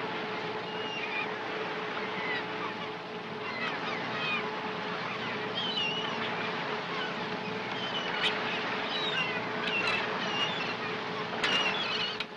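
Gulls calling again and again over the steady drone of a shrimp cutter's engine, with a brief clatter near the end.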